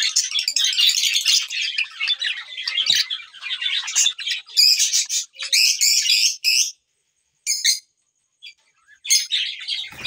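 Lutino Fischer's lovebirds chattering in rapid, high-pitched chirps. The chatter runs for about six and a half seconds and stops, comes back as a short burst, then starts again near the end.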